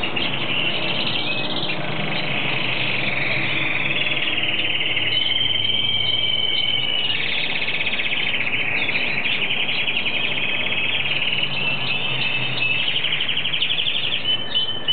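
Hooded siskin singing: a long, unbroken twittering warble, with held whistled notes about five seconds in and fast buzzy trills later on.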